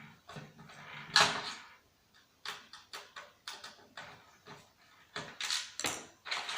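Irregular clicks, knocks and clatter of hard plastic and metal parts being handled while a CRT TV/DVD combo is taken apart, the loudest knock about a second in.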